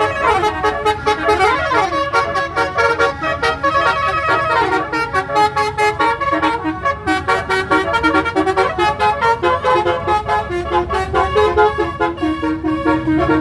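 Basuri 36-note multi-tone telolet bus horn playing a melody, a quick run of sustained horn notes with a fast up-and-down pitch sweep about a second and a half in.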